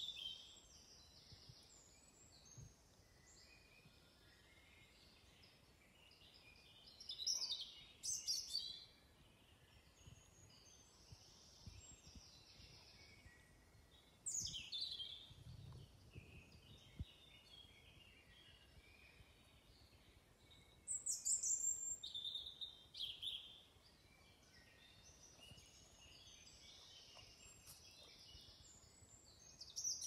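Woodland songbirds singing in a morning chorus: soft high chirping throughout, with a louder song phrase sweeping down in pitch about every seven seconds.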